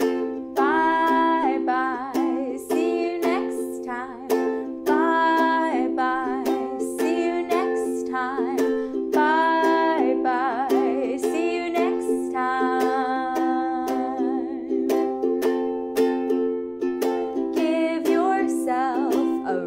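Ukulele strummed in a steady rhythm, with a woman singing a melody over it.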